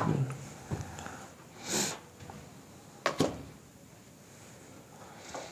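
A long rod knocking and prodding among old pipes and debris on a floor: a few separate knocks near the start and just under a second in, a short rushing noise, and a sharper knock about three seconds in.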